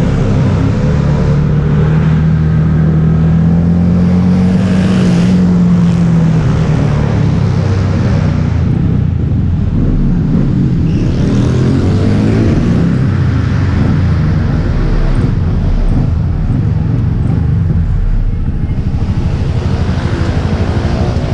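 Motorcycle engine running at low speed, close to the onboard microphone, its tone briefly rising and falling a couple of seconds in, then holding fairly steady.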